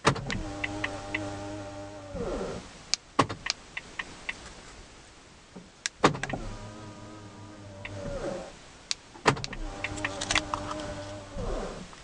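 Ford Fiesta electric window motor running three times, about two seconds each, with a steady whine whose pitch slides down as each run ends. Sharp clicks come between the runs.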